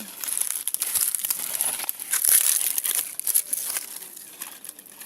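Crisp crinkling and crackling rustle made of many small dry crackles, loudest about two to two and a half seconds in.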